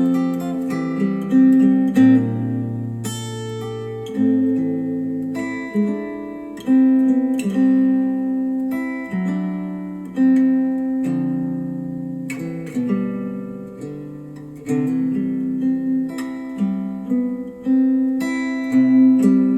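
Instrumental acoustic guitar music, plucked notes and chords ringing and fading, played back through KEF Q350 bookshelf speakers driven by a NAD C 338 integrated amplifier.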